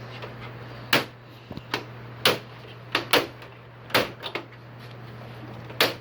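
The plastic back cover of a Samsung 55-inch TV being pried off with a flat screwdriver: a series of sharp clicks and snaps, about seven in a few seconds, as its latches pop loose.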